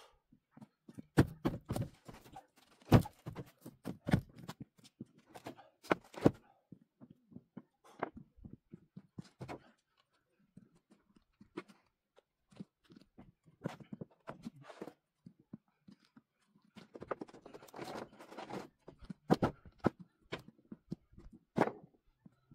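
Footsteps in rubber boots on loose wooden pallets: irregular hollow thunks and knocks. They come in two busy spells with a sparser stretch in the middle.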